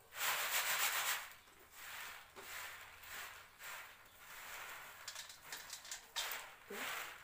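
Popcorn and unpopped kernels rustling and sliding across a woven bamboo winnowing tray as it is tipped and sifted by hand. The sound is loudest for about the first second, then comes as a series of shorter, quieter rustles.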